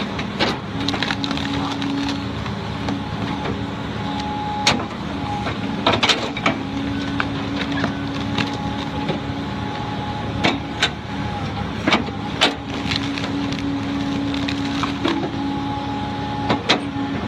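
Heavy machine's engine running steadily, with sharp knocks scattered irregularly over it.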